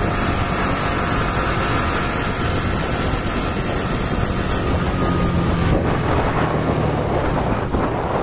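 Motorcycle in motion on a road: its engine running steadily under wind rushing over the microphone.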